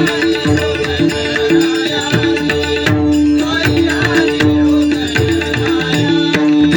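Marathi devotional bhajan music in the gap between sung lines: steady held melody notes over a running hand-drum rhythm.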